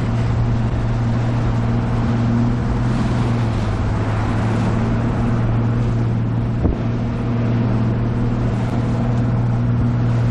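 Bass boat under way with its outboard motor running at a steady drone, over a loud rush of water and wind. One short thump comes about two-thirds of the way through.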